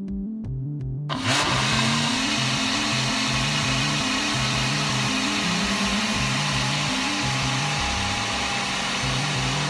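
Ninja personal blender motor running steadily, blending a fruit and protein shake, with background music that has a stepping bass line. The blender noise is absent for the first second, leaving only the music, then comes back and holds steady.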